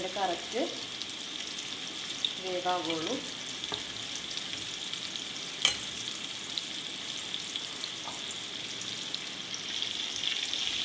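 Breaded chicken pieces deep-frying in hot sunflower oil in an iron kadai, a steady sizzle, with clicks and scrapes of a steel slotted spatula turning them against the pan. The sharpest knock comes a little before the middle. The pieces are reaching golden brown, nearly done.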